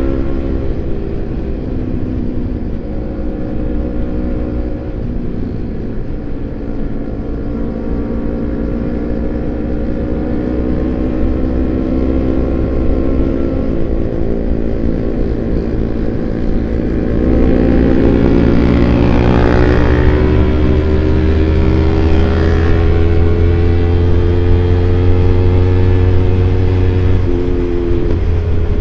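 Kawasaki Ninja 250 FI's parallel-twin engine running through a CLD Monster racing exhaust while riding, its pitch slowly rising and falling with the throttle. It gets louder about two-thirds of the way through.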